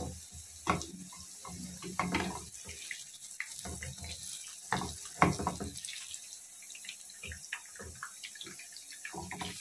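Battered potato pakoras sizzling in hot oil in a pan, with a metal slotted spoon scraping and knocking against the pan at irregular intervals as the pieces are turned over.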